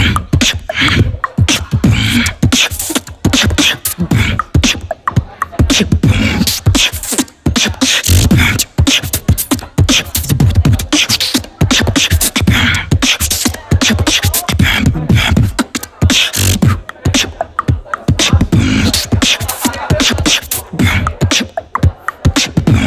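Solo human beatboxing into a handheld microphone: fast, continuous drum-like kicks, snares and hi-hat clicks from the mouth, mixed with short deep bass tones, in a steady driving rhythm.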